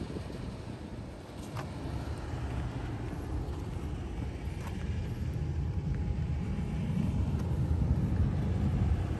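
Street ambience with road traffic: a low, uneven rumble of vehicles that grows somewhat louder in the second half.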